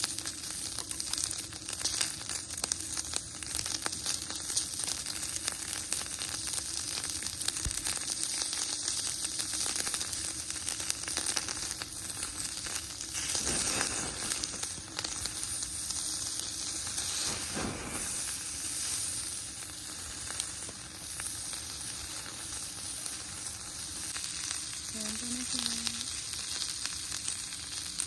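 Food sizzling and frying in a hot pan: a steady crackling hiss with small spatters.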